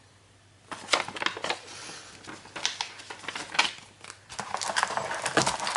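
Packaging being handled during an unboxing: plastic wrapping crinkling and rustling, with quick clicks and taps, starting about a second in and growing busier near the end.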